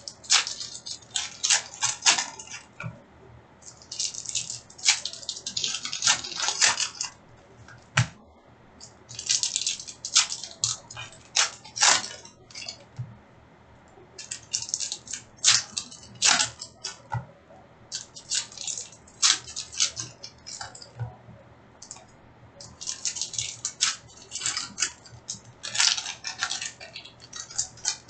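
Foil wrappers of 2019-20 Upper Deck SP Authentic hockey card packs crinkling and tearing, with cards being handled. It comes in crackly bursts of a second or two with short pauses between.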